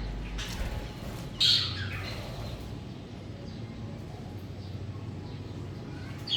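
Budgerigars chirping and squawking in short calls, with one loud call about a second and a half in and another at the end, over a steady low hum.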